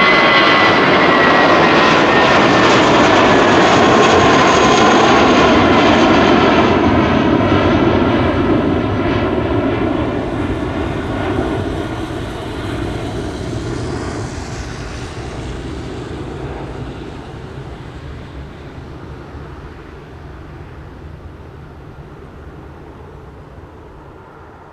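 Airbus A320-232's twin IAE V2500 turbofans at takeoff thrust as the jet climbs out past the listener: loud jet engine noise with a fan whine that slides down in pitch in the first few seconds, then fading steadily into the distance.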